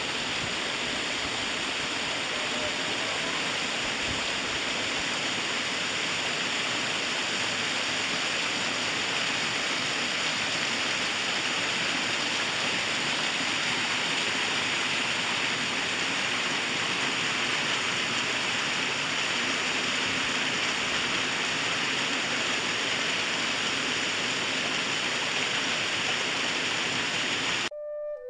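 Waterfall: a steady rush of falling water that stops abruptly near the end.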